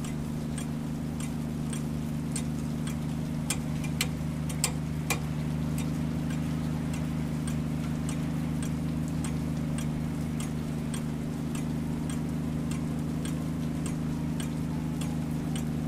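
A steady low hum with a regular ticking over it, about three ticks a second, and a few louder clicks about four to five seconds in.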